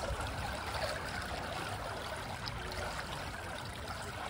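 Swimming-pool water trickling and lapping steadily.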